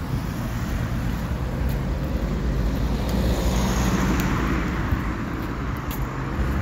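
Road traffic on a street: a steady low rumble, with a passing car's hiss swelling and fading about halfway through.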